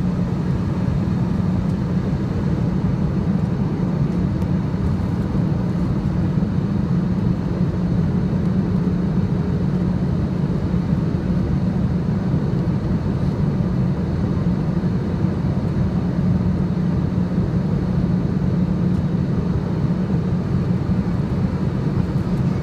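Steady cabin noise of an Air India Boeing jet airliner in flight: the low drone of the jet engines and rushing airflow, unbroken throughout.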